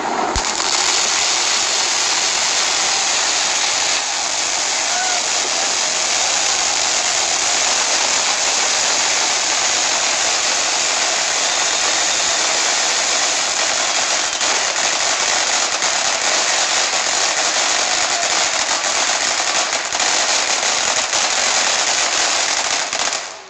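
Ground fountain firework spraying sparks: a loud, steady hiss with dense crackling, starting suddenly just after the start and cutting off abruptly near the end.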